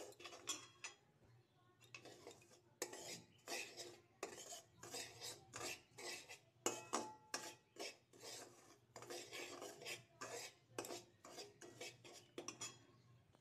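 Metal spoon scraping and stirring semolina roasting in ghee in a metal kadai, in repeated scrapes two or three a second. This is the slow low-heat roasting stage that makes the suji crumbly.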